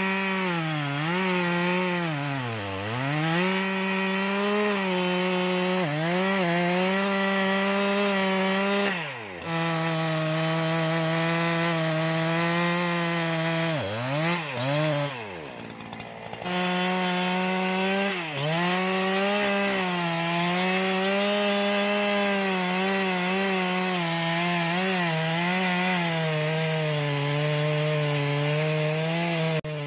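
Two-stroke chainsaw running near full throttle as it cuts through a mahogany trunk, its pitch dipping again and again as the chain bogs down in the wood. About halfway through it drops briefly to a low idle, then revs back up and keeps cutting.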